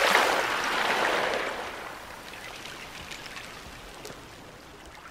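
Rushing water, like sea wash. It is loud at first and dies down after about a second and a half to a low, steady hiss.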